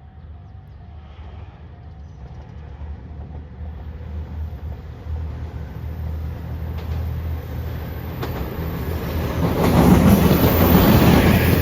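Level-crossing bell ringing faintly as a train approaches. The train grows steadily louder and passes near the end with wheels clattering over the rail joints.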